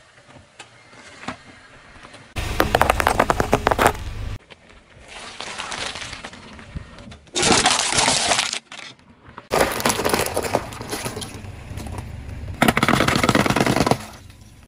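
A car tyre rolling over and crushing objects on pavement, including an aluminium drink can, heard as several separate bursts of crunching and crackling. About halfway through there is a loud hissing burst.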